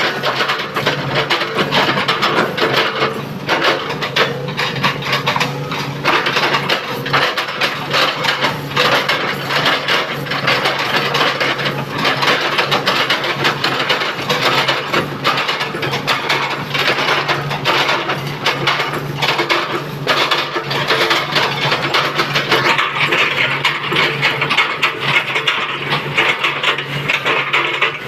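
Komatsu PC200 excavator's diesel engine running steadily while its bucket chops and crushes oil palm trunks, with many sharp cracks and knocks of splitting wood over the engine.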